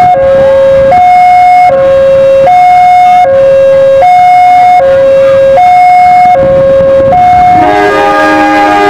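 Level-crossing warning alarm sounding a steady two-tone hi-lo signal, the pitch switching about every 0.8 s as a train approaches the closed crossing. Near the end a diesel locomotive's horn joins in over the alarm.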